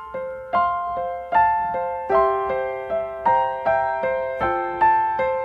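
Gentle background music played on piano or electric piano: single notes and chords struck about two to three times a second, each ringing out and fading.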